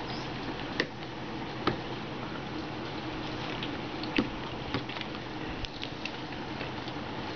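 Several sharp clicks and taps from a Samsung Champ touchscreen phone being handled, the three loudest about a second in, just under two seconds in and about four seconds in, over a steady background hiss.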